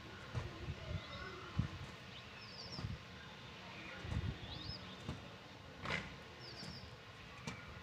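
Low thuds of feet on the ground during a footwork drill, loudest a few times, with small birds chirping in short quick groups of high notes now and then.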